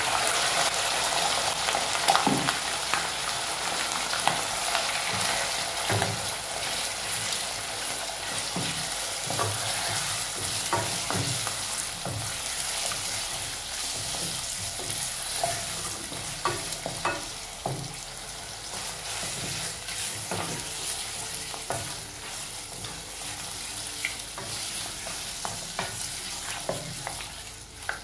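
Chunks of raw beef sizzling in hot oil in a pot, the sizzle easing slowly as the meat sears. A wooden spatula scrapes and knocks against the pot now and then as the meat is stirred.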